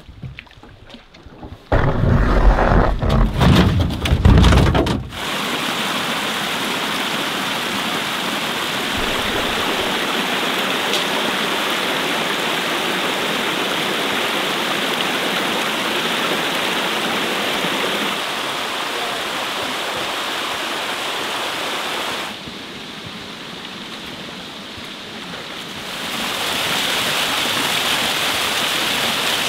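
A small woodland stream cascading over rock ledges: a steady rush of falling water, which drops quieter for a few seconds near the end and then swells again. It is preceded by a few seconds of loud, low rumbling.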